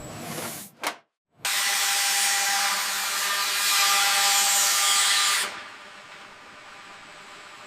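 A few clicks, then a power tool runs steadily for about four seconds and cuts off sharply, leaving a faint steady background noise.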